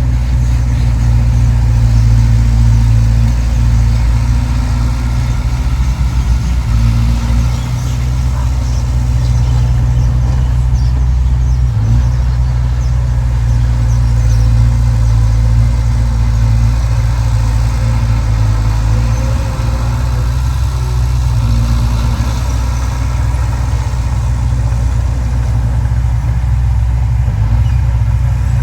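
Heavy earthmoving machine's diesel engine running steadily with a low drone.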